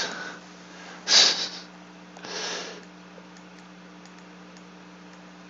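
A man's breath, a short sharp nasal breath about a second in and a softer breath about a second later, over a steady low electrical hum. A few faint clicks follow in the second half.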